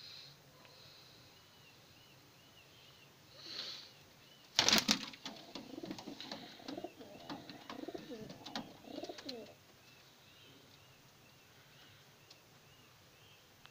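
Domestic pigeons in a loft. About four and a half seconds in there is a loud, sudden clatter of wing flapping as a pigeon flies in and lands. It is followed by about five seconds of low pigeon cooing. A faint, high chirp repeats throughout.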